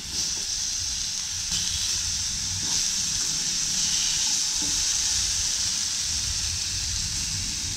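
Rainbow runner fillets sizzling steadily in a frying pan as they brown to a crust, with a few faint taps.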